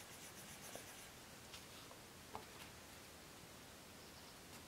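Faint scratching of a coloured pencil shading a small swatch on paper, with a few light ticks.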